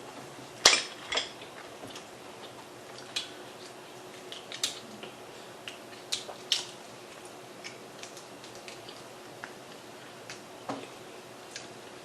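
Scattered sharp clicks and taps of shrimp shells being cracked and peeled by hand, the loudest pair in the first second and a half, then lighter clicks every second or so.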